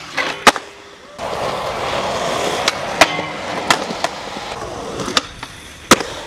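Skateboard sliding on a metal flat rail, then a sharp clack as it lands about half a second in. The wheels then roll over concrete with a steady noise and scattered clicks, fading somewhat after the middle, with another loud clack near the end.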